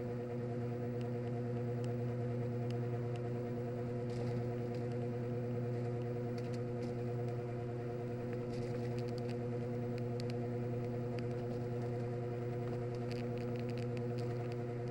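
Washing machine draining: a steady hum, most likely the drain pump motor, with faint scattered crackles above it.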